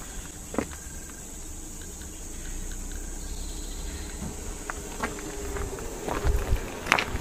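Insects buzzing steadily in a high, even band, with a few short knocks in the second half.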